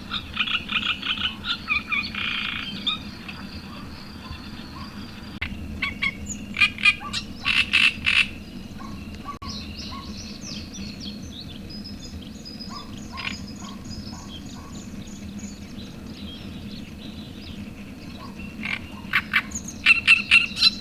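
Several bursts of rapid pulsed calls, each a quick run of croaking or chattering notes. Between the bursts come faint short high chirps from small birds, over a steady low rush of wind or water.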